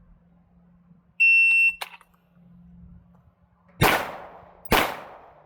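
An electronic shot timer gives one steady, high-pitched start beep lasting about half a second. About two seconds later come two pistol shots, a little under a second apart, on a draw-and-fire drill.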